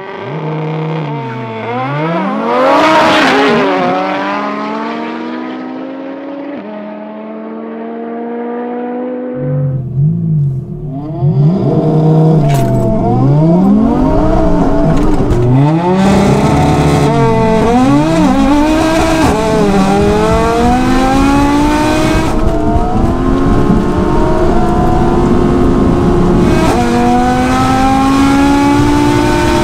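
A twin-turbo Audi R8 V10 and a built Audi TT RS turbo five-cylinder accelerate flat out through the gears, heard from inside the cars. The engine note climbs in pitch in each gear and drops back at each upshift, many times over. After about ten seconds there is a heavier, rumbling cabin sound.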